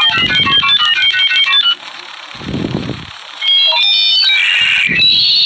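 Dial-up modem sound effect: a quick run of short electronic beeps at jumping pitches for the first second and a half, then a burst of crackly noise, more paired beeps and a stretch of hissy, screeching tone near the end.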